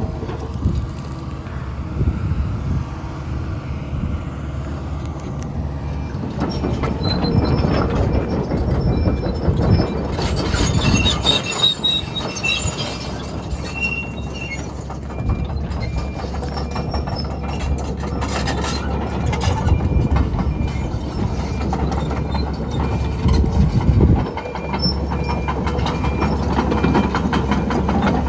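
Kobelco SK210LC-10 excavator's Hino diesel running under load while the steel bucket scrapes, knocks and drops chunks of concrete, with repeated metallic clanks. High metallic squeaks come about eleven seconds in.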